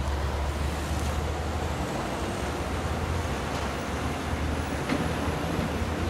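Steady road-traffic rumble from trucks and buses crossing the bridge.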